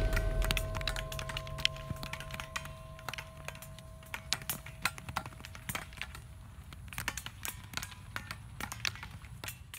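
Eskrima sticks clacking against each other and against padded armour in quick, irregular clusters of sharp cracks. A fading tail of background music is heard at the start.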